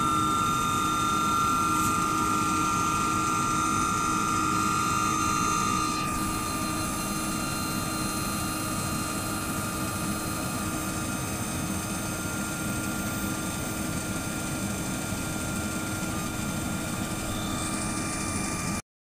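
Heavy diesel machinery, an asphalt paver with a tipper truck feeding its hopper, running steadily as a loud drone with a steady whine. The sound eases slightly about six seconds in and cuts off suddenly near the end.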